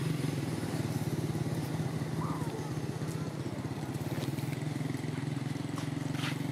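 Small engine idling steadily, a low even hum with rapid pulses. A faint short squeak comes about two seconds in.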